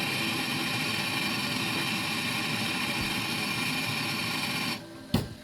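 An electric power tool's motor running steadily, then switched off shortly before the end, followed by a single sharp click.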